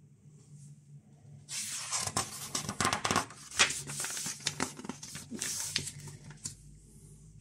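Paper pages of a printed instruction booklet being turned and handled: a burst of rustling with sharp ticks that starts about a second and a half in and dies away near the end.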